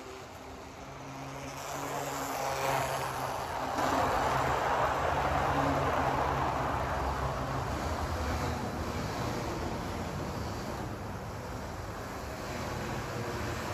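HO-scale model train running past on its track: the rattle and hiss of the Garib Rath coaches' wheels over the rails and a low motor hum. It builds from about a second in, is loudest about four to seven seconds in, then eases off as the train moves away.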